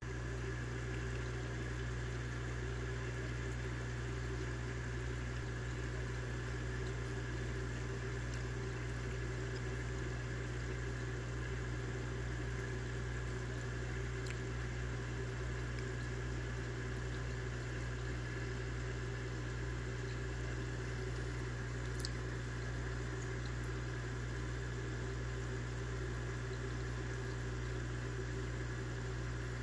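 Steady low electrical hum of running aquarium equipment, such as a filter or air pump, with a faint wash of moving water, and one brief click about two-thirds of the way through.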